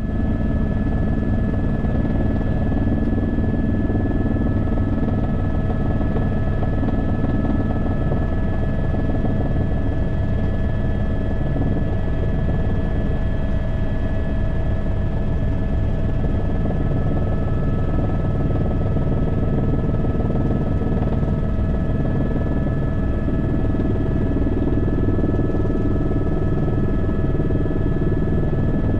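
Airbus H125 (Esquilo B3) helicopter in flight: a steady rotor and engine noise with a constant whine over it.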